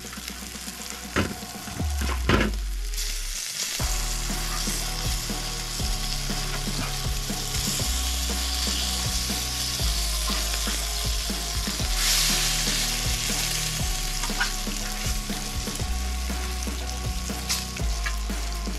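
Food frying in a hot pan, a steady sizzle that grows louder for a few seconds past the middle, with short scrapes and knocks of a utensil stirring it.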